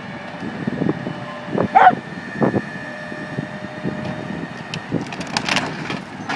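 Outdoor roadside ambience with a steady hum of vehicles. A single short, sharp call about two seconds in, and a quick run of clanks or knocks near the end.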